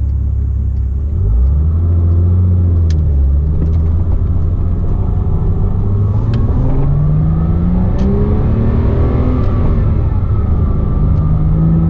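Porsche Cayman S 3.4-litre flat-six engine, heard from the cabin with the engine just behind the seats, pulling up through the revs with a brief dip early on, then climbing steadily. A high-pitched whistle rises and falls with engine speed; it comes from a worn water pump bearing.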